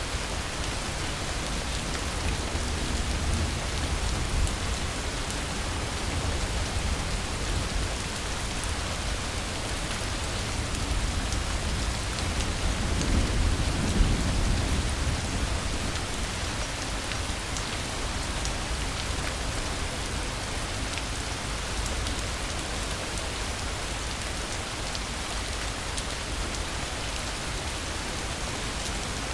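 Steady rain falling. A low rumble of thunder swells and fades about halfway through.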